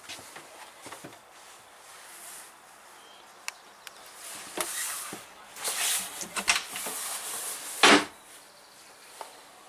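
Handling of a yacht's wooden cabin door: scattered clicks and rustles as it is opened, with one loud knock just before the end.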